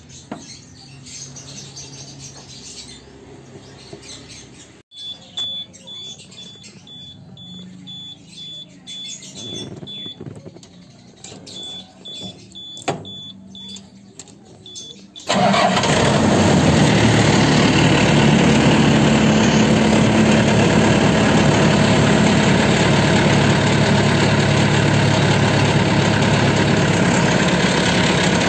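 A run of short, evenly spaced high-pitched electronic beeps from the combine harvester's dashboard warning buzzer, with a few clicks of the controls. About halfway in, the MAXXI BIMO rice combine harvester's diesel engine starts abruptly and then runs steadily and loudly.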